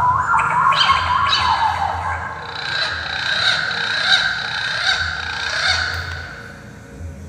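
Recorded birdsong played through a small MP3 bird-caller speaker: a rapid run of chirps and trills that fades out near the end.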